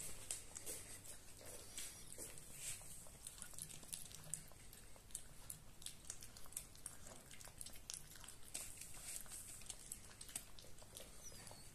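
A puppy eating from a bowl: faint, irregular clicking and chewing.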